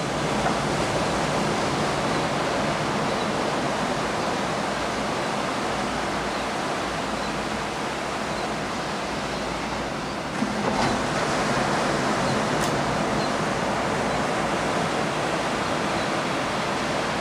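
Ocean surf washing on a beach, a steady even hiss that swells a little about ten seconds in.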